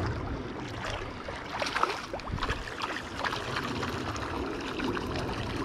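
Shallow, fast-flowing river water splashing and trickling close by, with a few sharper splashes in the middle.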